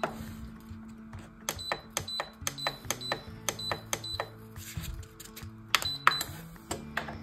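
Crockpot Turbo Express pressure cooker's control panel beeping under button presses: a quick run of short high beeps, about four a second, as the time button is pressed over and over, then two more near the end as Start is pressed and the cooker begins heating.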